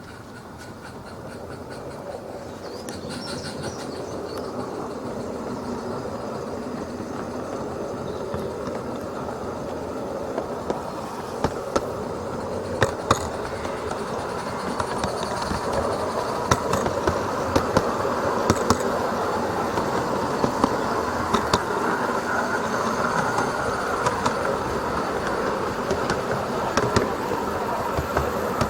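A model goods train running on SM32 garden railway track, its wheels rumbling and clicking over the rail joints. It grows steadily louder as it draws near over the first several seconds, then runs on close by with irregular sharp clicks.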